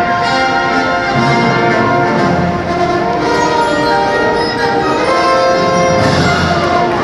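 Recorded orchestral music with held brass and string notes, the accompaniment music for a rhythmic gymnastics hoop routine.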